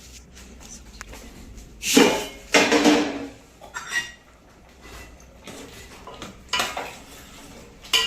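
Metal pots and utensils clattering and clanking as they are moved, in a few bursts with brief ringing. The loudest burst comes about two to three seconds in, with more near the end.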